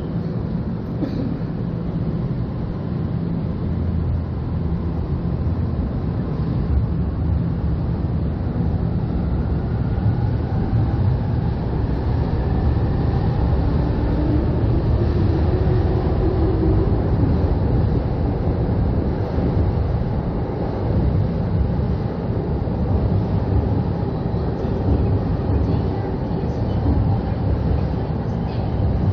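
Electric commuter train pulling out of an underground station platform, its cars rolling past with a steady heavy rumble of wheels on rail. A faint motor whine rises in pitch as it picks up speed.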